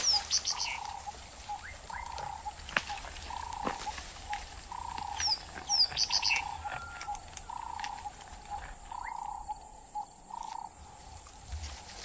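Wild birds calling: a short call repeated about once a second, with a few quick high chirps, mostly about halfway through, and a thin steady high whine underneath.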